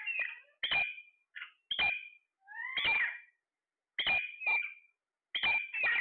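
Alexandrine parakeets calling: a run of about eight short, sharp calls, roughly one a second, with one longer call near the middle that rises and then falls in pitch.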